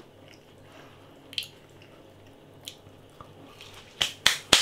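A person eating a crispy battered chicken chunk close to the microphone: quiet, wet chewing and mouth sounds, with three sharp clicks close together about four seconds in.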